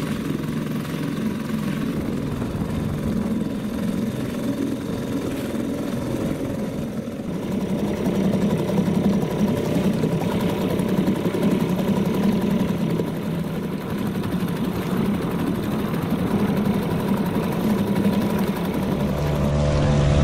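An engine running steadily, a little louder from about eight seconds in.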